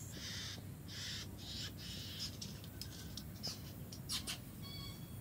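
Great bowerbird giving a run of harsh, rasping calls in short bursts, then a few sharp clicks. A short, clearer call comes near the end.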